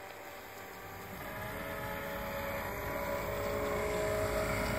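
Homemade RC air boat's twin brushless quadcopter motors and propellers whining at speed, growing louder from about a second in.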